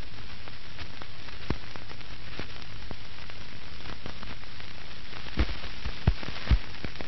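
Steady hiss and light crackle of an old film soundtrack, with scattered faint clicks and three short soft thumps close together near the end.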